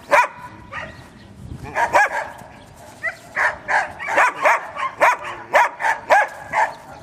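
A canine barking in short, sharp, pitched barks, a few at first and then a quicker run of about two or three barks a second.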